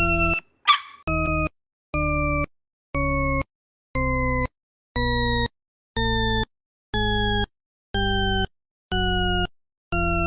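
A series of short buzzy electronic tones, about one a second, each held for about half a second and each at a slightly different pitch, played as a sound effect. A puppy gives one short bark just under a second in.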